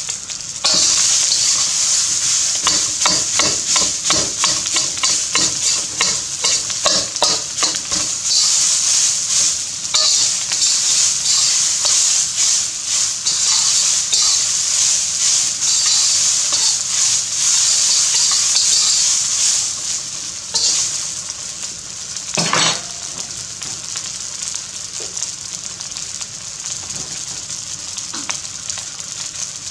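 Rice, bacon and red onion sizzling in a hot wok while a spatula scrapes and tosses it in quick, rapid strokes. After about twenty seconds the stirring stops and a quieter steady sizzle goes on, with one sharp knock partway through.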